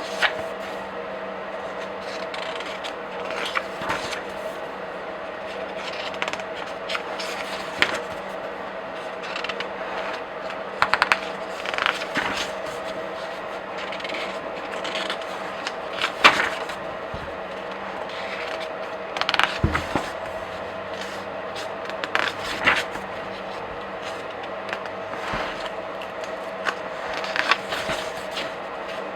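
Pages of comic books and graphic novels flipped by hand: irregular crisp paper flicks and rustles, some in quick runs, over a steady background hum.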